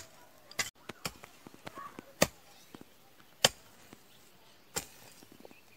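Heavy hand hoe (a Garhwali kutla) striking hard, dry, stony ground: sharp strokes about every second, five in all.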